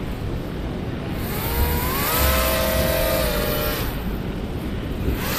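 Radio-controlled four-motor airboat: its electric motors and propellers spin up with a whine that rises in pitch, hold for about two seconds, and cut back about four seconds in, then throttle up again near the end. A low wind rumble on the microphone runs underneath.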